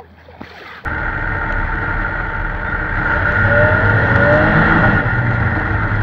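Vehicle engine running loudly while under way, with a strong low rumble and rushing noise. It starts abruptly about a second in.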